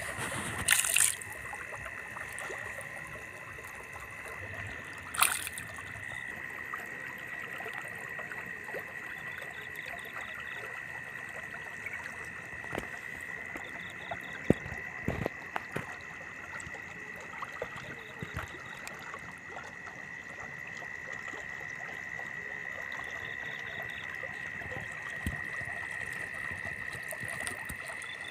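Water trickling through a muddy cut in a rice-paddy bank under a steady high-pitched insect chorus. Two loud knocks, about a second in and about five seconds in, with scattered small clicks later.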